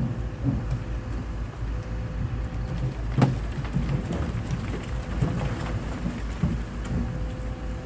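Dump truck with its bed raised, emptying a load of earth: a steady diesel engine rumble under the patter and crackle of soil pouring out, with a loud thud about three seconds in.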